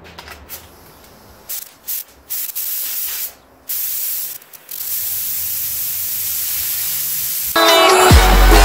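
Gravity-feed air spray gun spraying primer onto steel trailing arms: several short hisses of air and paint, then one longer steady hiss. Loud electronic music with a heavy beat comes in near the end.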